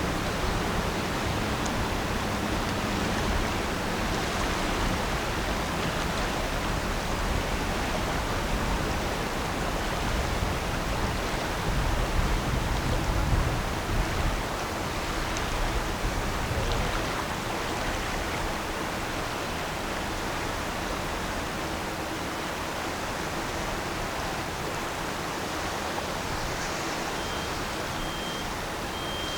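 Steady rushing of water past a passing lake freighter, with a low engine hum in the first few seconds and a stronger low rumble about halfway through. A quick series of short high beeps comes near the end.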